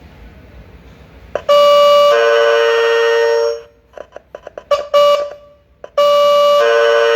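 Truck reversing horn (a 12–24 V backup alarm) sounding its blue-wire mode, loud: a two-note electronic horn call, a short higher note dropping to a longer lower one, about two seconds in all. In between come a few clicks and a brief blip of the tone, then the two-note call sounds again near the end.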